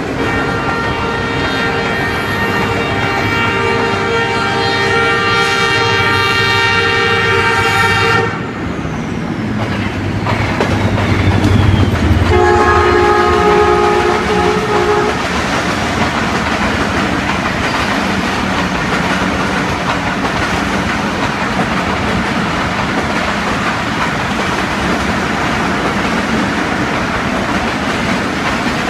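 Two ZCU-30 diesel locomotive horns exchanging a greeting: a long multi-tone blast of about eight seconds, then after a short gap a second, shorter horn of about three seconds at a lower pitch. After that comes the steady rumble and clickety-clack of passenger coaches running past.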